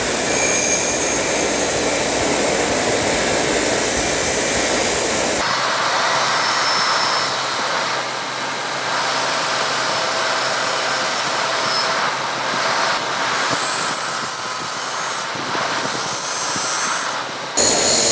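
Bench grinder running while a small steel plane screw, held in pliers, is pressed against its spinning wheel to clean it: a steady whirring, hissing grind. The sound drops a little about five seconds in and comes back up sharply near the end.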